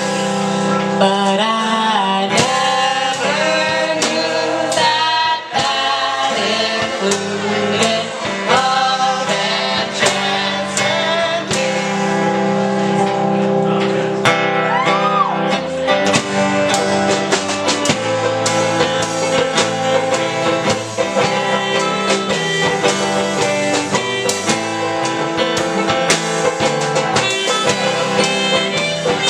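Folk band playing a song: guitar with singing over it.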